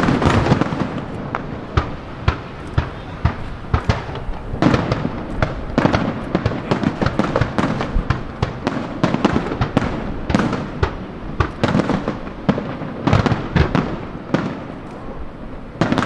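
Aerial fireworks bursting in quick succession: many sharp cracks and bangs, several a second, over a continuous rumble, with denser volleys at intervals.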